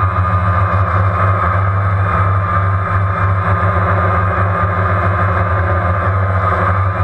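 DJI Phantom quadcopter's motors and propellers running steadily in flight, heard through the GoPro Hero3 Black mounted on it: a constant low hum with a higher whine that wavers slightly.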